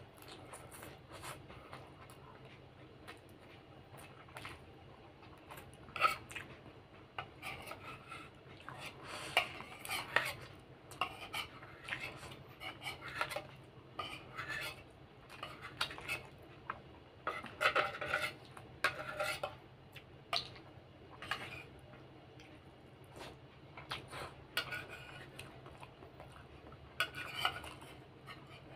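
Metal spoon scraping and clinking against a plate while eating: irregular scoops and taps, with clusters of louder scrapes.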